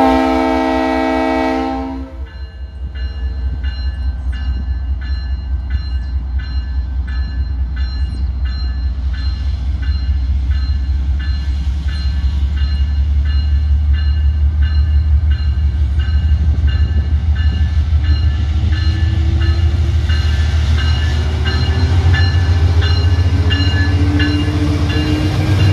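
A diesel-electric freight locomotive sounds its multi-note air horn in one chord for about two seconds as it approaches. Its engine rumble then grows louder as it nears and passes, while a bell rings steadily about twice a second. A rising whine comes in during the last several seconds.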